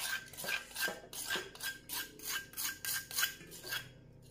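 Metal spoon scraping wet spice paste off a stone mortar, in quick short strokes about four a second that stop shortly before the end.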